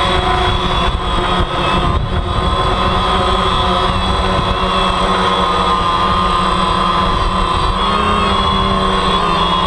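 DJI Phantom quadcopter's four electric motors and propellers whining steadily, heard from the GoPro mounted on the drone in its outer housing. The pitch shifts slightly as the drone manoeuvres, over a rough low rumble.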